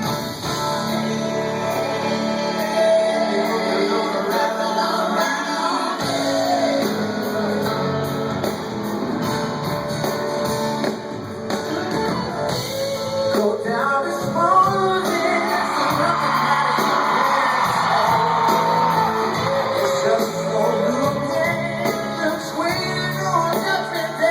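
Live rock band playing with guitars and a lead singer, heard in a large open-air venue. A long held sung note comes about three-quarters of the way through.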